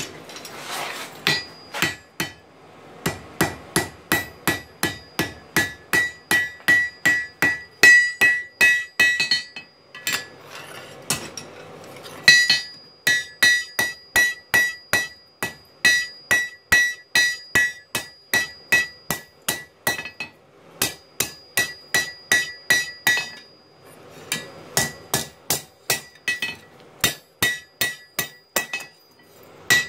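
Hand hammer striking the red-hot tip of a kitchen knife blade on an anvil, forging it. The blows are steady, about two to three a second, each with a bright metallic ring. They come in three runs with two short pauses between them.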